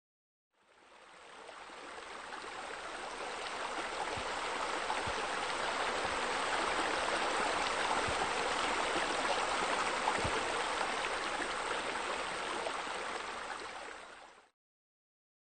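Water splashing steadily into a pool from its water features. It fades in over the first few seconds and fades out about a second before the end.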